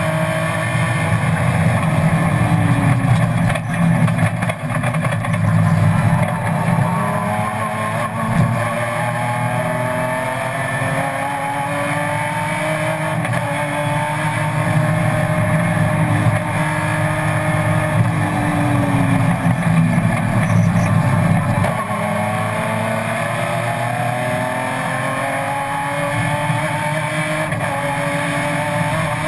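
BMW M3 race car's engine heard from inside the cabin at racing speed, its pitch repeatedly climbing under acceleration and falling back on gear changes and braking.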